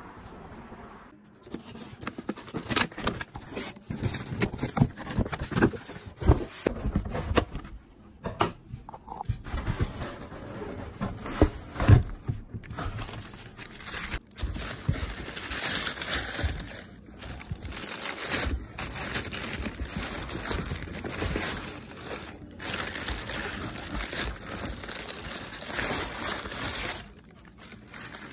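A cardboard shipping box being handled and opened, with irregular knocks and crackles, then tissue paper crinkling and rustling as it is folded back from a pair of sneakers in their shoebox.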